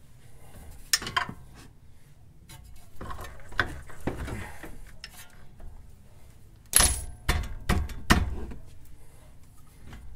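Metal clunks and scrapes of a VW Mk5 R32 front control arm being twisted and worked up into its subframe mount. The fresh bushing is a snug fit. Scattered knocks, with a burst of sharper clanks about seven to eight seconds in.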